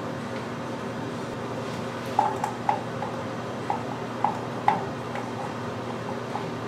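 Toilet seat's plastic mounting hardware clicking as a hand works the nut under the hinge: about half a dozen short, sharp clicks between two and five seconds in, over a steady low hum.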